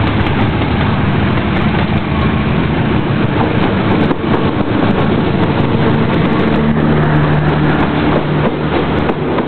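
CC203 diesel-electric locomotive passing close by, its diesel engine running loud with a steady low drone, over the rumble and rattle of wheels on rail. The coaches follow near the end.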